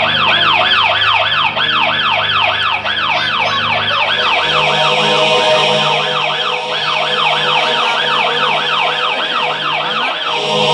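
Electronic emergency-vehicle siren in a fast yelp, a falling sweep repeating about three times a second, cutting off near the end, over a steady low hum.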